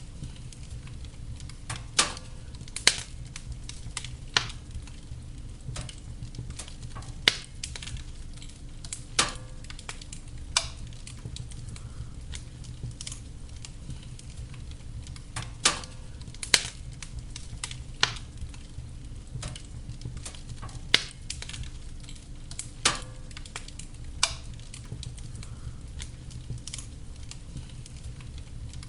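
Wood fire burning in a fireplace, with a steady low rumble of the flames and sharp, irregular crackles and pops every second or two.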